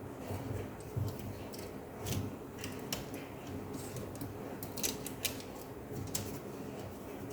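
Scattered, irregular plastic clicks and taps as a replacement keyboard is pressed and fitted into an Asus X541UA laptop's top case.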